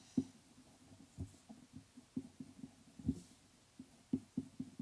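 A pencil drawing short lines on paper laid on a wooden table: irregular soft knocks about one or two a second, with a faint scratch of the lead now and then.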